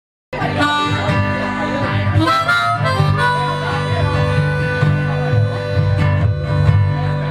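A small acoustic band plays the instrumental opening of a folk song: a held, singing melody line over guitar and steady bass notes. It starts suddenly just after the beginning.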